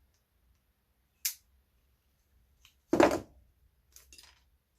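Small parts being handled on a workbench: a sharp click about a second in, then a louder knock about three seconds in, followed by a few faint clicks.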